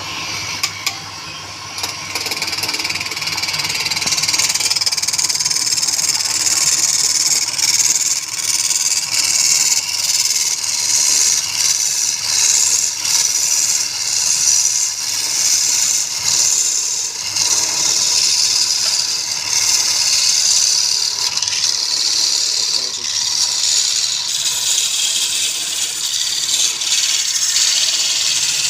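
Wood lathe running while a turning tool cuts the spinning wood: a steady, loud hiss of shavings coming off, over the low hum of the lathe motor.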